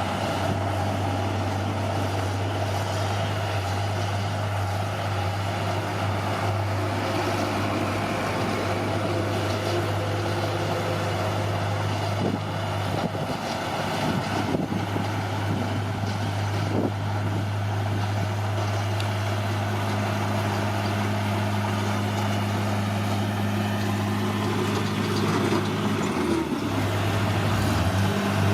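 Bulldozer's diesel engine running steadily under work, with a few knocks in the middle and a brief dip and recovery in the engine note near the end.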